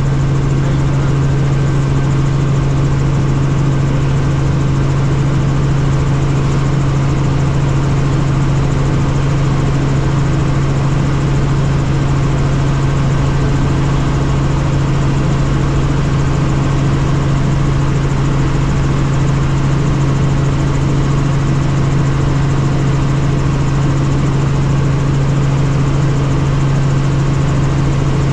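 Helicopter running steadily: an even engine and rotor drone with a strong, steady low hum that does not change.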